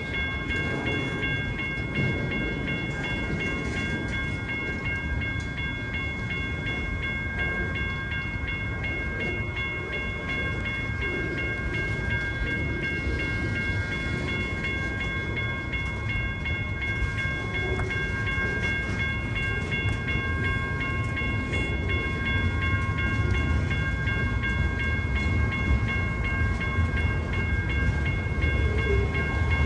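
Freight train rumbling along, with a steady high whine of several tones held throughout, growing louder in the last third.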